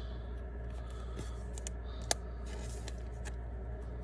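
Faint clicks and light handling noise from trading cards being handled, with one sharper click about two seconds in, over a steady low hum.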